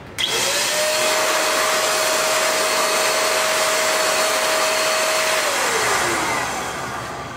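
Small handheld pet blow dryer (XPOWER) switched on: its motor whine climbs quickly to a steady pitch over a loud rush of air. About five seconds in it is switched off and winds down, the whine falling in pitch as it fades.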